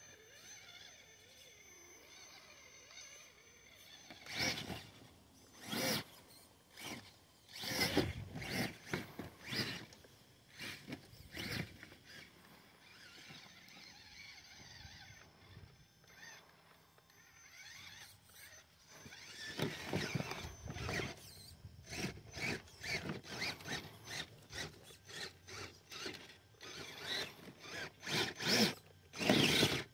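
Traxxas TRX-4 Bronco RC crawler's electric motor and gear drivetrain whining in short stop-start bursts as it crawls over soil and clods, the pitch rising and falling with the throttle. The bursts come more often and louder in the last third.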